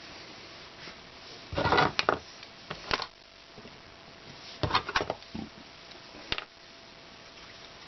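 Handling noise of parts being moved about on a workbench: four short bursts of clattering and knocking, the loudest about a second and a half in and again near the middle.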